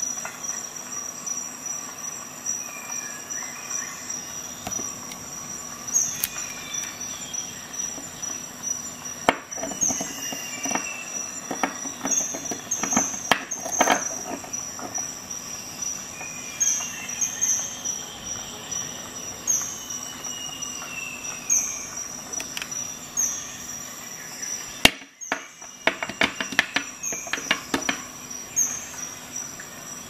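Sharp metallic clicks and brief ringing scrapes from a stainless-steel multitool being opened and handled, in two busier spells, over a steady high-pitched whine.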